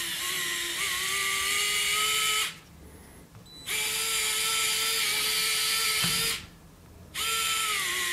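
Small electric micro motor whining through its gearing as it tilts a LEGO Technic truck's cab up, down, then up again: three runs of about two to three seconds each, stopping briefly between them.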